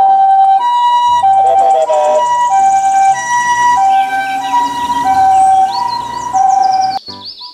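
Japanese ambulance's two-tone electronic siren sounding the alternating hi-lo "pee-po" pattern, each tone held about half a second. It cuts off suddenly near the end.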